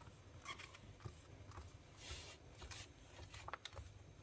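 Faint rubbing and small clicks of a refrigerator's rubber door gasket being pressed by hand into its groove on the door.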